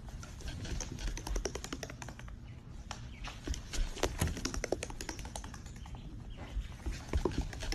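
Rapid, irregular light taps and clicks against a hardwood floor, several a second with some louder ones scattered through.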